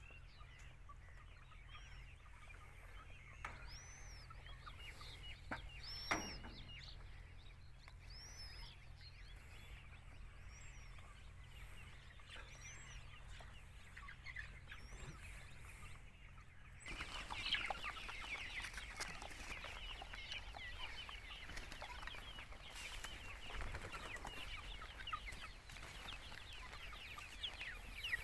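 Faint outdoor ambience with a few short, high chirps at first. About two-thirds of the way through it changes abruptly to a flock of free-range chickens clucking continuously.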